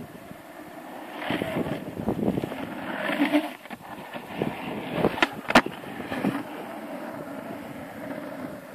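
Longboard wheels rolling on asphalt, louder as the rider passes close, with two sharp clicks about five seconds in.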